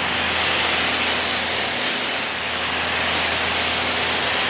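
High-pressure water jet from a wand fed by two Kranzle pressure washers plumbed together, spraying steadily onto a concrete driveway as a loud, even hiss, with a steady low hum underneath.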